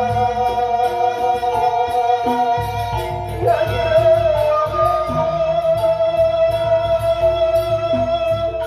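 Slow, mournful Sasak song: a man singing into a microphone, with a bamboo suling flute, in long held, slightly wavering notes.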